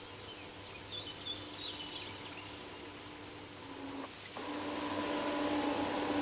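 Small electric motors of a radio-controlled fishing bait boat whining steadily as it runs across the water, getting clearly louder a little past halfway as it comes closer. Birds chirp faintly over the first half.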